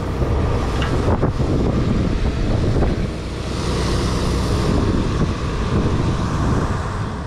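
Water spraying from a hose nozzle onto hay in a feed mixer wagon, over a steady low rumble and wind on the microphone.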